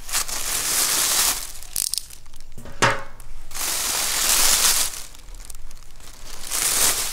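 Plastic garbage bags rustling and crinkling as they are pulled open and dug through by hand, in three long bursts, with a single sharp crackle about three seconds in.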